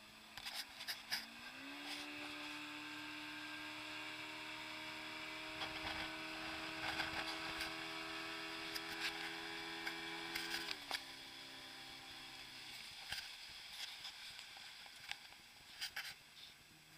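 Motorboat engine under way towing an inflatable ring. The engine revs up about two seconds in, runs steady, drops in pitch near eleven seconds and dies away about two seconds later. Scattered sharp knocks run through it.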